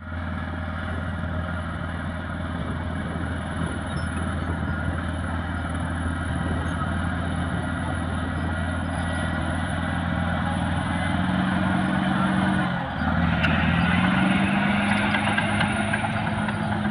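Caterpillar D6R bulldozer's diesel engine running steadily; a little over two-thirds of the way in its note dips briefly and then rises to a higher steady pitch.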